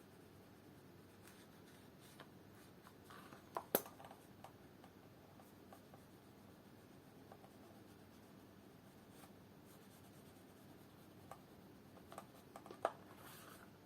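Quiet hand work: soft rubbing and scratching with a few light clicks, one sharper click about four seconds in and a small cluster near the end.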